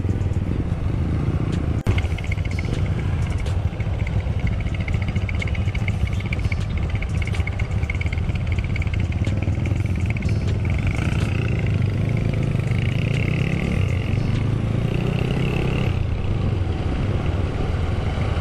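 Classic Honda CB motorcycle engine running as it rides at low speed in traffic among other motorcycles. There is a single sharp knock about two seconds in, and a higher whine comes and goes above the engine.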